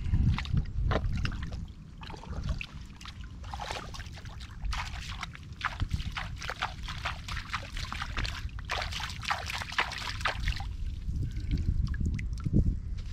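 Water and wet mud being stirred: trickling and sloshing with many small crackles and pops, thickest in the middle stretch.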